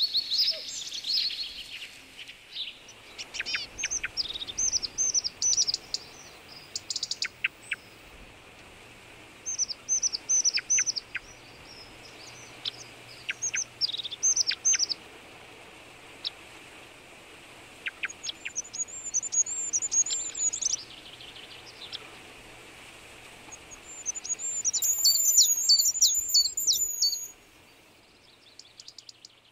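Songbirds singing in woodland: short phrases of quick, high, downward-sweeping notes every few seconds, with a longer, louder trilling phrase near the end.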